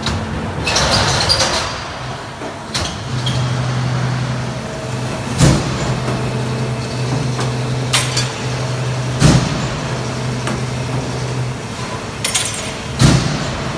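Finn-Power SG CNC punch press with its notching shear unit running: about five sharp metal strikes, spaced irregularly one to three seconds apart, each with a short ring. Under them runs a steady low motor hum that stops a couple of seconds before the end.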